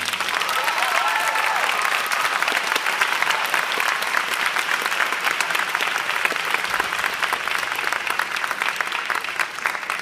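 Concert audience applauding, a dense steady clapping, with a voice or two whooping about a second in.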